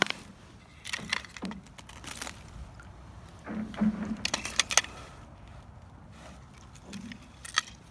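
Handling noise at an ice-fishing tip-up: scattered sharp clicks and crunches in two clusters, about a second in and around four seconds in, with one more near the end.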